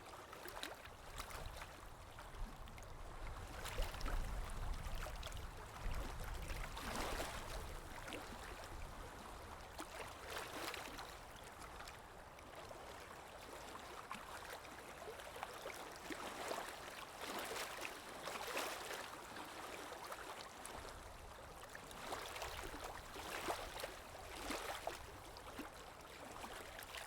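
Faint river water flowing and splashing, in irregular surges.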